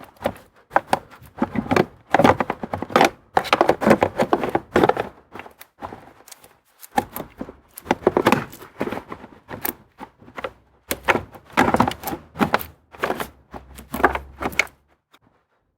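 Irregular hard plastic clicks and knocks as the outer plastic cover is fitted back over a car's AC blower motor.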